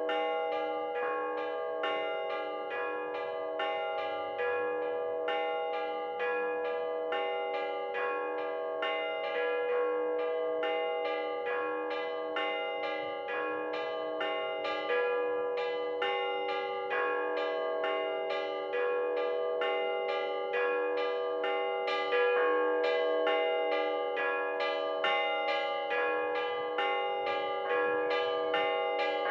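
Russian Orthodox bell ringing on the middle-sized (podzvonnye) bells: a quick, even peal of hand-rung strokes, several pitched bells overlapping and ringing on. One stroke about two-thirds of the way in is a little louder than the rest.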